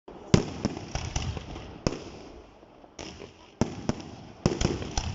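Fireworks going off: a series of sharp bangs at irregular intervals, each with a short echoing tail, several coming close together near the end.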